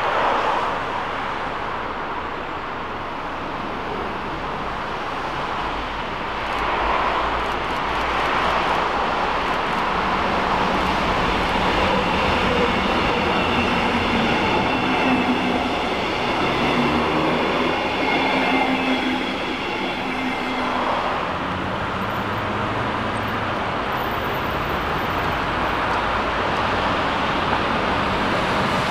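Electric-hauled double-deck passenger train passing close by: steady rolling of steel wheels on the rails, with a thin high wheel squeal in the middle of the pass.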